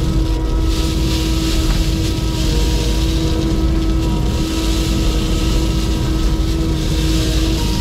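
Kubota compact track loader's diesel engine running steadily under throttle with a constant whine, as crushed stone pours out of the tipped bucket with a gritty rush that is strongest in the first few seconds.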